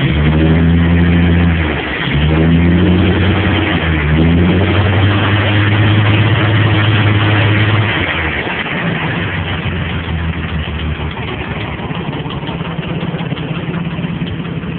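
Freshly rebuilt Ford 300 (4.9 L) inline-six engine running through a temporary flex-pipe exhaust. It is revved up and down a few times and held up for a few seconds, then drops back to a steady idle about eight seconds in. The engine still needs some tuning adjustment.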